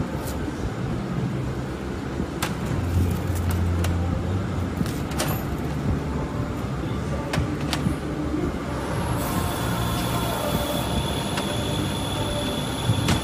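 Steady machinery hum in a workshop, with scattered metal clicks and knocks as parts of a small manual tablet press are handled. A high-pitched steady whine comes in about nine seconds in.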